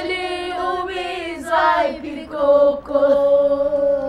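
A small group of children singing together a cappella, holding long drawn-out notes that slide from one pitch to the next.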